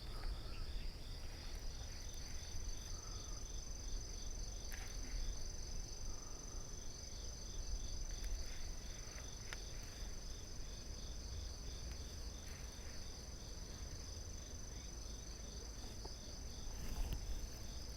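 Crickets chirring in a steady chorus: a continuous high trill with a row of regular chirps beneath it, about three a second, over a faint low rumble.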